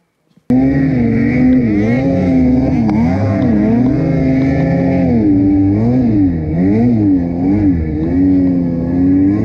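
Ski-Doo Summit 850 snowmobile's two-stroke engine running loud and revving up and down repeatedly as it rides through deep powder. It cuts in suddenly about half a second in.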